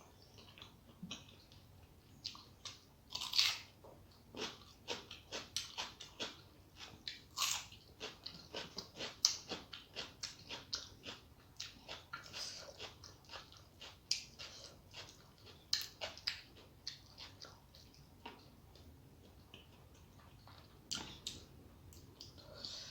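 A person eating a rice-and-curry meal with fried vegetables close to the microphone: steady, irregular small chewing and mouth clicks, with a few louder ones.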